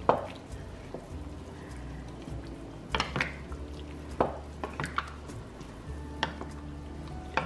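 A wooden spatula stirs chunky broccoli soup in an enamelled pot, scraping through the liquid, with a few sharp knocks as it hits the sides of the pot at irregular moments.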